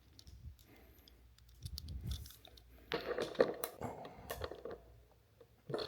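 Light clicking and rattling of a small hand tool being fitted to and turned on screws, with a busier run of clicks about halfway through.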